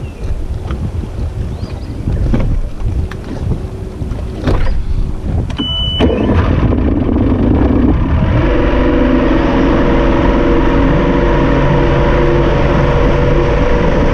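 Wind on the microphone and chop slapping the hull of a drifting bass boat, with a short beep just before six seconds in. Then the boat's 2004 Mercury 150 EFI two-stroke V6 outboard runs as the boat gets underway, holding a steady pitch from about eight seconds in over wind and water noise.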